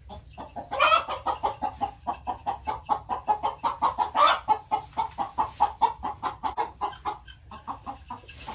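Chickens clucking in a quick, steady run of short calls, several a second, with louder squawks about a second in and about four seconds in.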